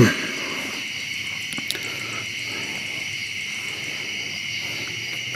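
Night insect chorus, crickets and similar insects, trilling steadily and high-pitched.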